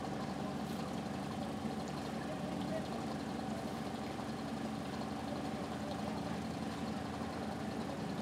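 An engine idling steadily on a work site: a constant low hum with a steady higher tone above it.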